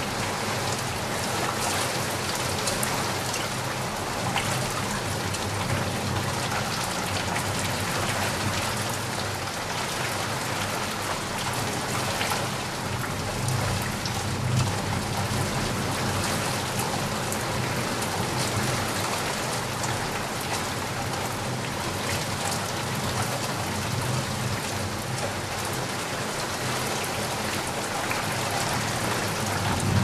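Heavy rain falling steadily, a dense even hiss with the patter of countless drops hitting the ground.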